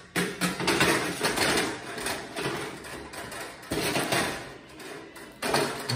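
Stainless grill pan and wire rack of a Paloma gas stove's fish grill rattling and clattering as the grill drawer is handled and slid back in, with sharp metal knocks among the rattle.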